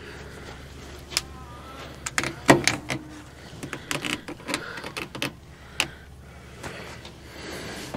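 A run of irregular clicks and knocks, the loudest about two and a half seconds in, over a faint low steady hum.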